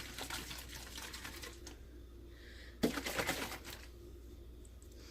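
Rapid runs of small clicks and clinks from a jar and utensil being handled, with a sharper knock nearly three seconds in followed by another quick run of clicks.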